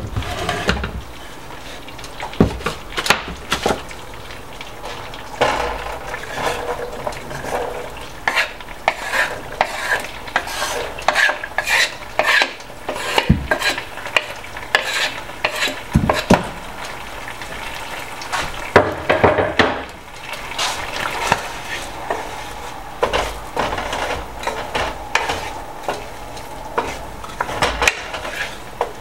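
Diced onions sizzling in melted butter in a nonstick skillet. A wooden spoon stirs them, scraping and knocking against the pan at irregular moments.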